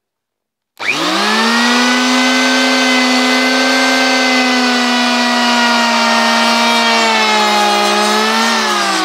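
McKeller electric hand planer switched on about a second in, its motor whine rising quickly to a steady high pitch. It runs while being pushed along the corner of a wooden board, then is switched off near the end, the whine falling in pitch as the cutter block spins down.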